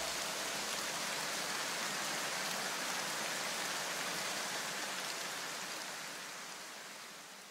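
A steady, even hiss like rain, fading away over the last couple of seconds.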